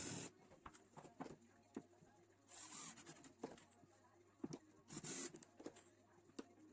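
Faint handwork sounds: three short rasping, scraping strokes with small clicks and knocks between them.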